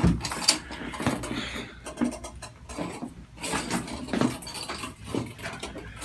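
Handling noise around a chiropractic treatment table: scattered small clicks, knocks and rustles as people shift on and around the table, with a thump at the start.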